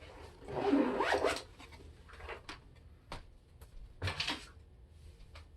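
Balisong knife being handled: a brief rasping rub about half a second in, then several light, sharp clicks of the handles and pins.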